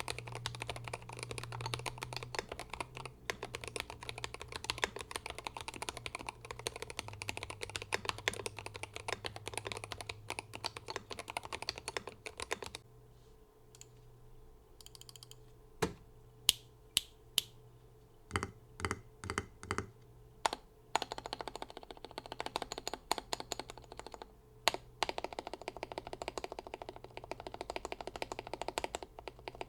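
Glorious GMMK 3 HE 75% keyboard with hand-lubed Fox Red Hall-effect magnetic switches, tape mod and full foam, typed on quickly. About halfway through the typing stops briefly, then separate single keystrokes are struck one at a time for a few seconds before fast typing resumes.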